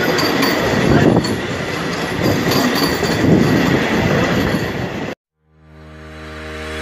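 Passenger train running past close alongside: rumble of wheels on rail with clacking over the rail joints. It cuts off abruptly about five seconds in, and outro music fades in.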